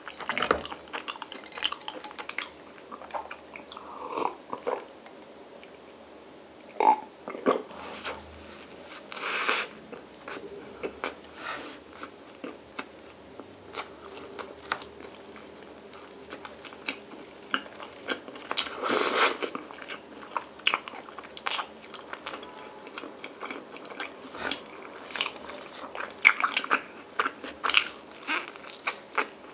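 Close-up eating sounds: biting into and chewing soft bread spread with Nutella and topped with vanilla ice cream, full of quick wet mouth clicks, with a few longer, louder sounds around ten and nineteen seconds in.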